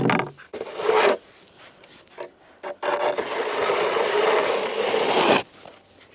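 Snow shovel scraping across pond ice: two short scrapes, then one long push of about two and a half seconds.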